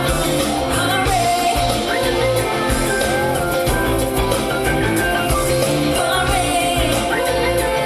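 Live pop-rock band playing a song, with drums, bass and electric guitar and a singer's voice over the band.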